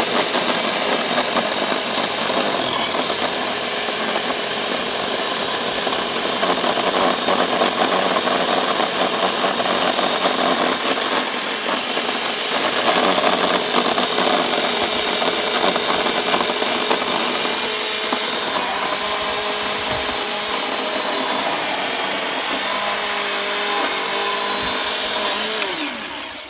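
Chainsaw running and cutting into the wood of a small topiary tree, its pitch rising and dipping as the cut goes on; it winds down and stops near the end.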